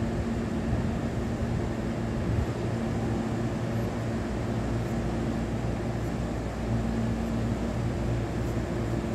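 Hankyu 7000 series electric train standing at the platform, its onboard equipment and air conditioning giving a steady low hum with a few held tones. The audio is played backwards.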